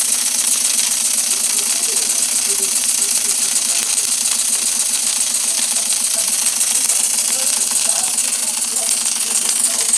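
Model V-twin steam engine running fast off a small vertical boiler: a loud, steady hiss of steam with a rapid rattling beat from the exhaust and valve gear.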